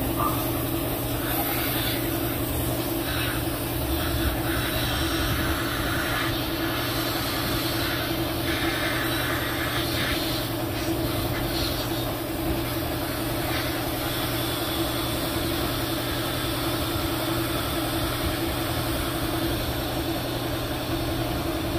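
Steady blowing hiss over a low hum, typical of a hot-air rework station's blower running while a surface-mount resistor is lifted off a TV main board.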